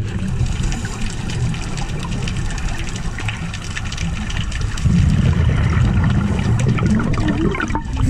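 Scuba regulator exhaust bubbles gurgling and crackling, with a dense low rumble, heard through an underwater camera housing. It gets louder about five seconds in, as a fresh exhalation of bubbles rises past the camera.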